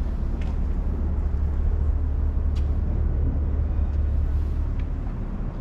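Steady low rumble of outdoor background noise, with a few faint ticks over it.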